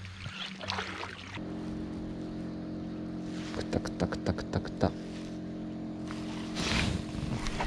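A boat motor starts humming steadily about a second and a half in and keeps running. A quick run of about ten sharp clicks comes in the middle.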